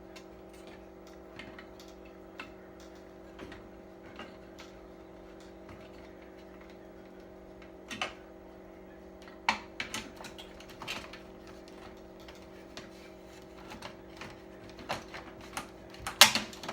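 Scattered clicks and light knocks of plastic TV parts being handled and fitted back together, a few sharper ones near the end. A steady low hum runs underneath.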